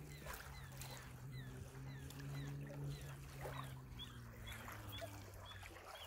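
Small waves lapping gently on a sandy river shore, under a steady low engine hum. A bird chirps over and over, about twice a second.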